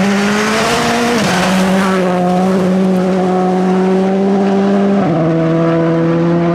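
Škoda Fabia rally car's turbocharged four-cylinder engine running hard at high, steady revs. Its pitch steps down twice, about a second in and about five seconds in.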